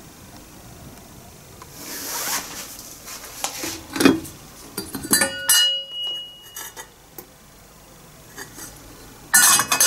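A metal ladle and lid clinking against a white enamel soup pot, one clink ringing on for about a second and a half. There is a burst of loud noise near the end.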